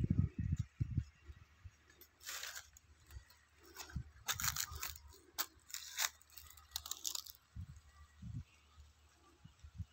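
Irregular crunching and rustling noises, thickest in the middle, followed by a few soft low thumps.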